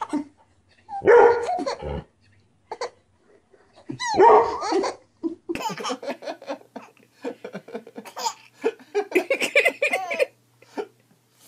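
A small dog barking several times at a baby, and the baby laughing in response.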